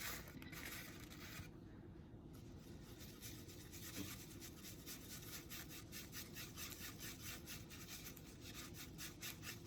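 Faint, quick rubbing strokes on a surface, a few a second, repeating evenly.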